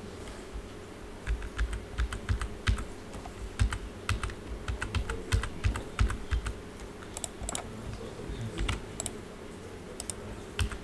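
Computer keyboard keys and mouse buttons clicked irregularly while editing a 3D model, over a steady low hum.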